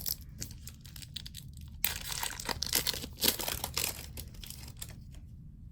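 Hockey card pack wrapper being torn open and crinkled, with crackling that is loudest from about two seconds in and dies away near the end.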